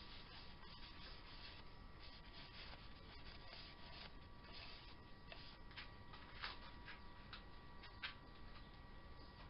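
Near silence: faint rubbing and a few soft ticks over a steady faint whine, with two slightly louder clicks about six and a half and eight seconds in.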